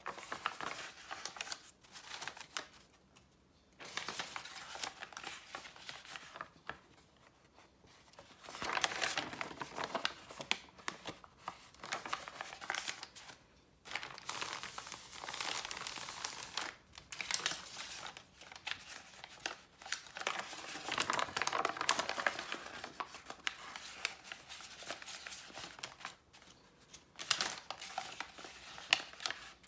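Sheets of dyed paper being handled, rustling and crinkling in bouts of a few seconds with short quiet pauses between them.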